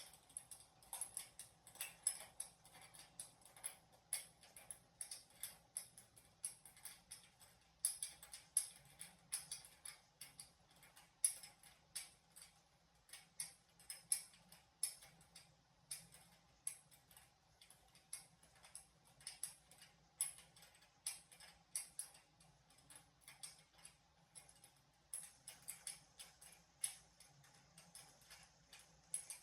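Ratchet wrench clicking in quick, uneven runs of ticks as a 12 mm nut is run down the rim lock on a dirt bike wheel, over a faint steady hum.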